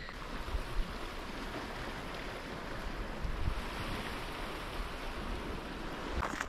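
Wind blowing across the microphone: a steady rushing hiss with an uneven low buffeting rumble.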